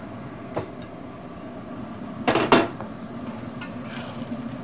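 Metal spatula knocking against a wok: a light tap about half a second in, then two sharper knocks a quarter second apart near the middle, over a faint steady hum.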